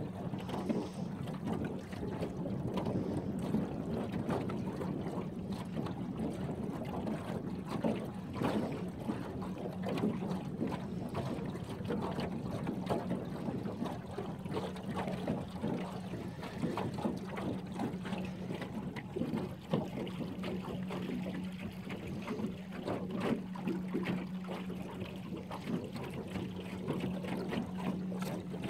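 Small aluminum boat under way: water splashing and lapping against the hull, over a steady low motor hum.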